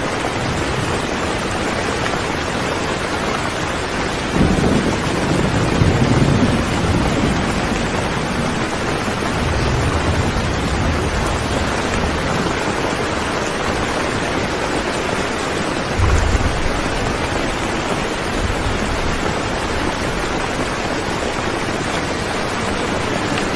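Steady rain falling, with low rolls of thunder rumbling in about four to seven seconds in, again around ten seconds, and briefly near sixteen seconds.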